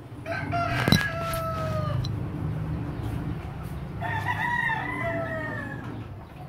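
Rooster crowing twice, each crow long and sagging slightly in pitch at its end, with a sharp knock about a second in.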